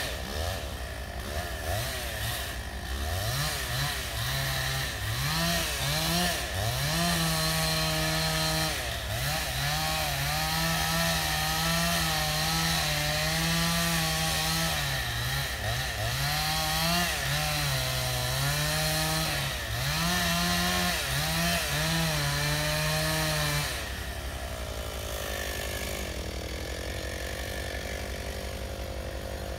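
Two-stroke chainsaw cutting into a tree trunk, its engine revving high with the pitch repeatedly dipping and recovering as the chain bites into the wood. Near the end it eases back to a quieter, steady running.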